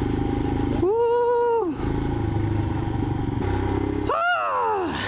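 Royal Enfield Himalayan's air-cooled single-cylinder engine running steadily under way on a dirt lane, with wind rush over the microphone. A high, drawn-out vocal whoop about a second in, and another rising and falling whoop about four seconds in.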